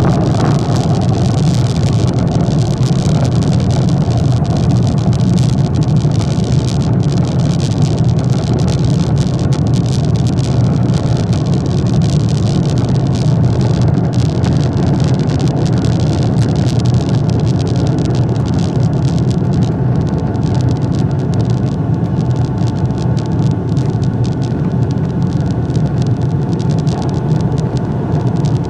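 Boeing 757 jet engines and rushing air heard from inside the passenger cabin during take-off: a steady, loud low rumble with faint whining tones above it.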